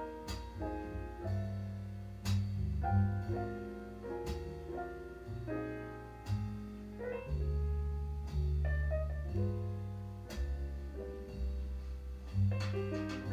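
Jazz record playing through a 2A3 single-ended tube amplifier and JBL 4312D monitor speakers: piano chords over a bass line that changes note about once a second, with light cymbal strikes.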